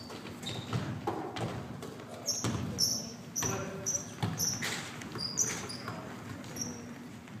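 Basketball game on a hardwood gym floor: a string of short, high sneaker squeaks as players run and cut, among the thuds of the ball bouncing and players' footfalls.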